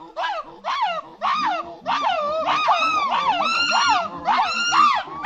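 Monkey screaming: a series of shrill, arching calls, a few spaced apart at first, then about two seconds in running together into a rapid chattering string of about three calls a second.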